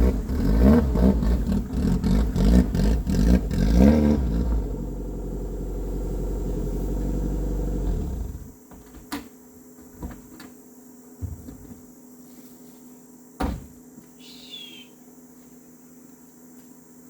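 Fiat 147 pick-up's engine running with its pitch rising and falling for about four seconds, then settling to a steadier, quieter run and cutting off about eight seconds in. A few sharp knocks follow, the loudest near the end.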